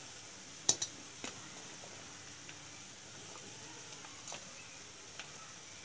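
Chopped onions and diced carrots sizzling gently in hot oil in a frying pan, with a few sharp clicks, the loudest about a second in.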